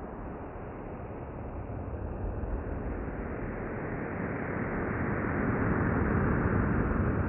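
NASA Chandra X-ray Center sonification of a black hole: astronomical data converted into audible sound, heard as a deep, noisy drone that grows steadily louder.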